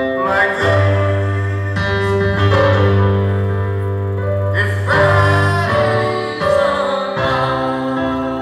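Electronic keyboard playing sustained chords over a deep, steady bass note, the chords changing every second or two.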